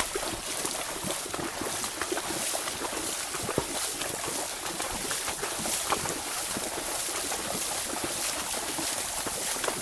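Horses wading through water, the legs sloshing and splashing steadily and irregularly.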